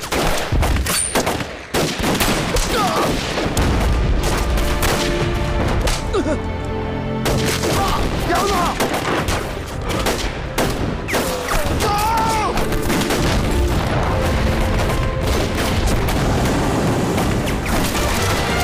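Dense battle gunfire from rifles, shot after shot overlapping, with a brief lull about six seconds in. Men's shouts rise above it around the middle.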